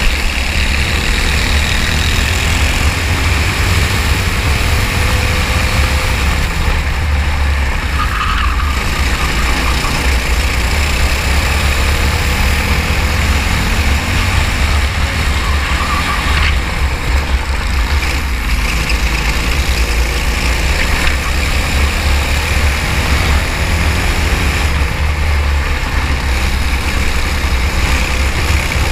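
Racing kart engine running at speed, its pitch repeatedly rising and falling, over a constant heavy low rumble.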